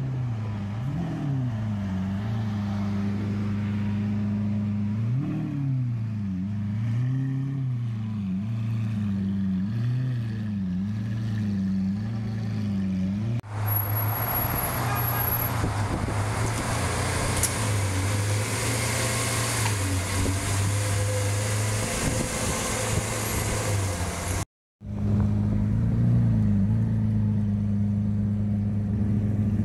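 Lamborghini Aventador's naturally aspirated 6.5-litre V12 idling and blipped again and again, the pitch rising and falling about once a second. Midway there is a louder, rough and noisy stretch with no clear engine note, then the V12 idles again with one small blip.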